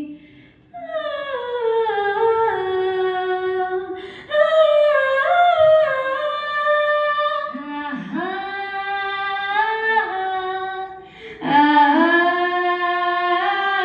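A woman singing a Hindi song into a microphone over the hall's speakers, in long held notes that glide between pitches, with short breaths between phrases. No instrument is heard with her.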